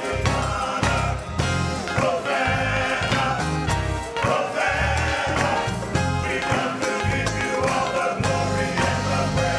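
Gospel music: a choir singing over a band with a pulsing bass line and a steady beat of percussion.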